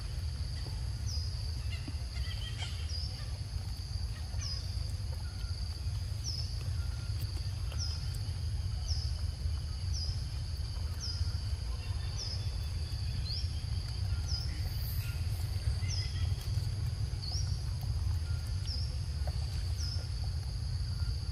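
Outdoor forest ambience: a steady high-pitched drone with a short, sliding high note repeated roughly once a second, over a steady low rumble.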